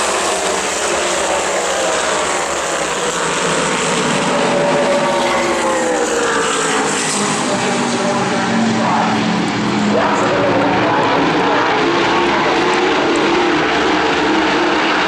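USAC Silver Crown race cars racing at speed in a pack, their engines at high revs. The engine notes rise and fall as the cars pass and accelerate.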